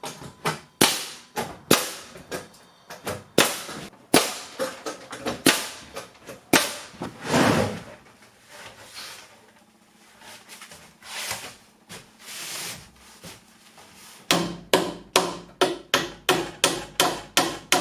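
Hammer blows driving nails into wooden studs to frame a wall: scattered sharp strikes at first, a quieter spell in the middle, then a fast, even run of about four blows a second near the end.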